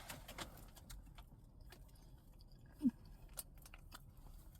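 Faint chewing: scattered soft mouth clicks and smacks while eating a burger, with one brief low hum about three seconds in.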